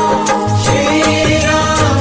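Music in an Indian film-song style with a steady drum beat under a melody line.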